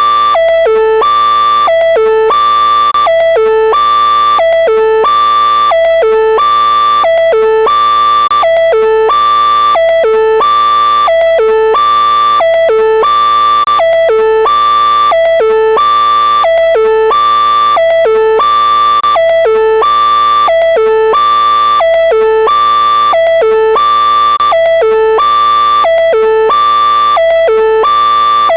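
Synthesized vocoder alert sound looping a short pattern of three stepped pitches, low, middle, then high, about once every second and a half, loud and unchanging.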